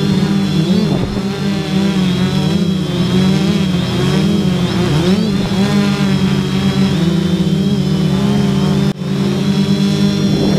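A hexacopter's motors and propellers hum steadily in flight, the pitch wavering up and down as the motors speed up and slow down to hold and steer the copter. The sound drops out for an instant about nine seconds in.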